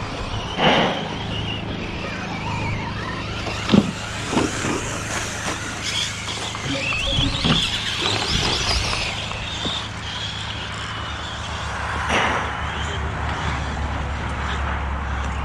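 Electric RC short-course trucks running on a dirt offroad track: brushless motors whining, the pitch rising and falling, with a few sharp knocks.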